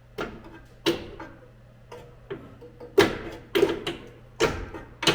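Repeated sharp metal clanks and knocks, about nine, uneven, with a short ring after each, the loudest about three seconds in: a hand tool prying and knocking at a stubborn exhaust hanger under a truck.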